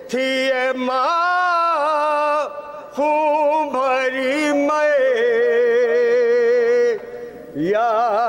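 A man singing a noha, a Shia lament, into a microphone without instruments: long held notes that waver and glide in pitch, sung in phrases with short breaks between them.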